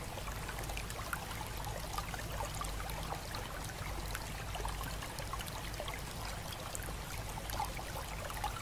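Running water trickling and splashing steadily, with many small droplet sounds, over a low steady rumble.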